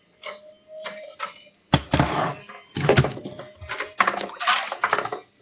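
Handling noise: a few sudden knocks and rustles as the camera is moved and bumped about, the first strong knock about a second and a half in.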